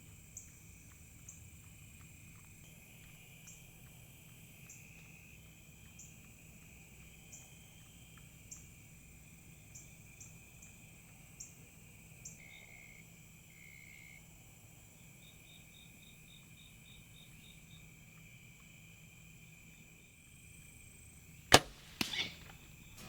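Insects trill steadily at dusk, then a bow is shot at a feral hog: one sharp, loud crack near the end, and a second, smaller thud about half a second later.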